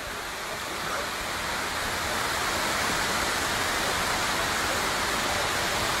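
Steady rushing of a waterfall cascading over rocks, growing a little louder in the first second or two and then holding even.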